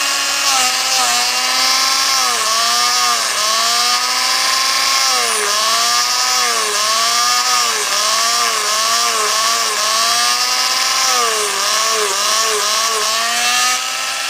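Craftsman rotary tool (Dremel-type) running at low speed while cleaning carbon off a leaf blower's spark arrestor screen. Its steady whine sags in pitch and recovers again and again, about once a second, as the bit is pressed into the work and eased off.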